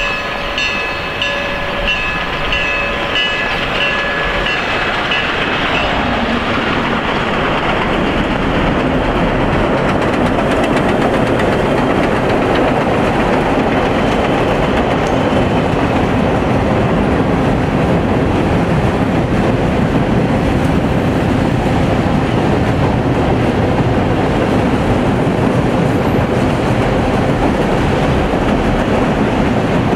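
Railroad cars (passenger coaches, a covered hopper and loaded tank cars) rolling across a steel through-truss bridge: a steady clatter and rumble of wheels on the rails that grows a little louder. A high steady ringing tone sounds over about the first five seconds and then stops.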